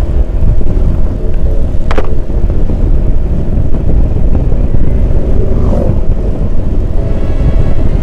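Motorcycle riding noise: wind rushing over the microphone with the bike's engine running steadily underneath. A sharp click about two seconds in.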